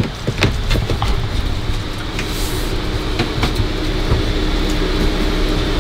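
Steady rushing hum of an air-conditioning unit, with a low steady tone joining about halfway through. A few light knocks and taps sound in the first half as a shiplap panel is handled against the wall.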